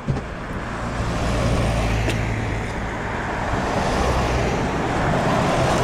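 Steady low rumble of a motor vehicle engine under a noisy hiss.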